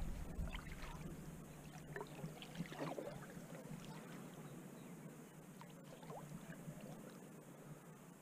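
Faint water sounds around a small fishing boat: light splashes and trickles as a lure is drawn through shallow water, with scattered small clicks. A faint steady low hum runs underneath, and it all fades toward the end.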